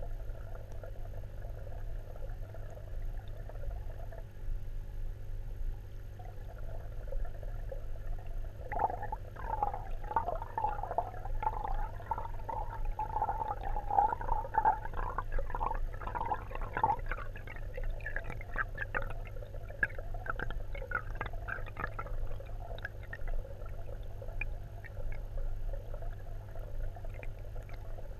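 Underwater sound in a koi fry tank: a steady low hum, with a stretch of bubbling and crackling from about nine seconds in until a little past twenty seconds.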